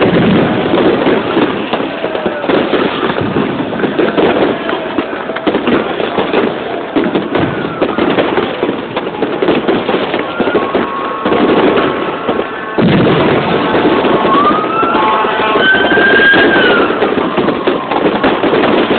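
Dense, continuous bangs and crackling of many fireworks going off at once, rockets and firecrackers overlapping without a break.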